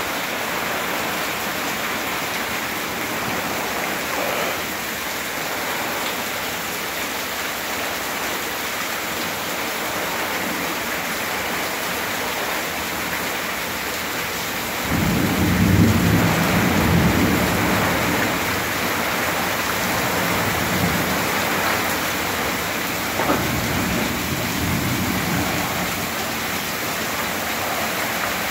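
Heavy rain pouring down steadily in a thunderstorm. About halfway through, a long, deep rumble of thunder rises and fades over several seconds, and a short sharp knock comes about three-quarters of the way through.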